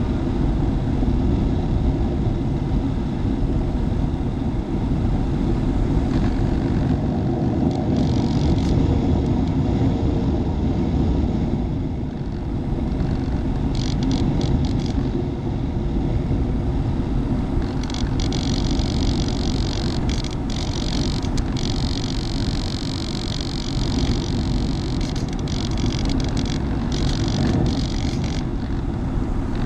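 Finwing Penguin electric FPV airplane in flight: a steady rushing rumble of wind, with a high whine from its electric motor and propeller that comes and goes, strongest in the second half.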